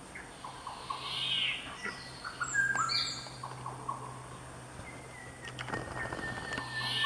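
Birds calling and singing: a varied string of whistled notes, short chirps and falling slurs, with a loud arched whistle about a second in and again at the end. A faint steady low hum runs underneath.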